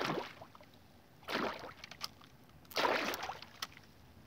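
A small hooked pike splashing at the surface beside the boat, twice, each splash about half a second long.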